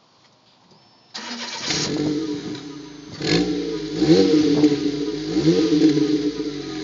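A Fiat Punto Sporting 16v's four-cylinder petrol engine, heard close at its Powerflow centre-exit exhaust tailpipe, starts about a second in and settles to idle. It is then revved several times, each blip rising and falling in pitch.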